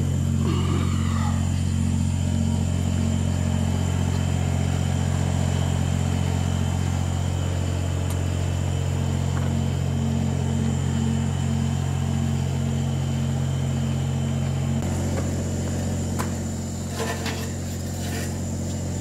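An engine idling steadily, with a constant low hum and a faint high whine. One part of the low hum drops out about fifteen seconds in.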